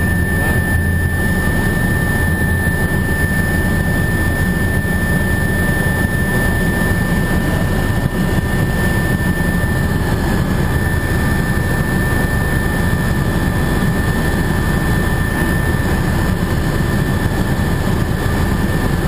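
Helicopter in steady cruise heard from inside the cabin: a constant low rumble with a steady high whine over it.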